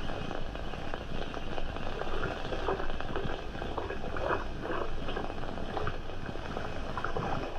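Water splashing and lapping in a river, with many small irregular splashes, under the steady hiss and crackle of an old film soundtrack.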